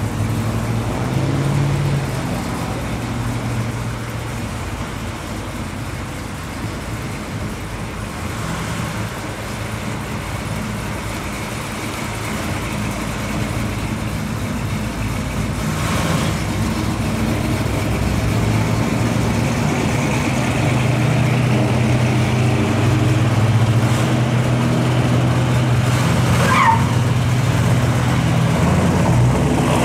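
Engines of classic American cars rolling slowly past one after another: a 1955 Chevrolet, then a Chevrolet Chevelle. The low engine sound grows louder over the second half as the Chevelle draws near.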